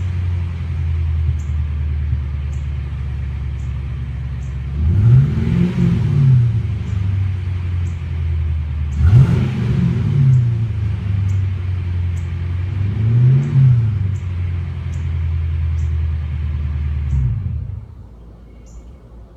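1998 Ford Mustang GT's 4.6-litre V8 idling with a misfire, revved briefly three times, each rev rising and dropping back to idle. The engine is switched off near the end.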